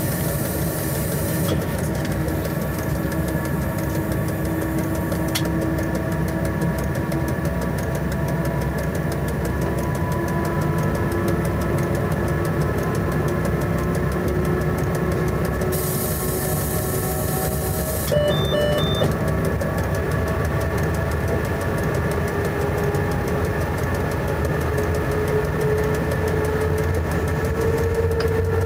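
Inside the cab of an El 16 electric locomotive hauling a freight train at speed: steady whine from the traction motors and gearing, slowly rising in pitch as the train gathers speed, over the rumble of wheels on the rails. A couple of short electronic beeps sound about two thirds of the way through.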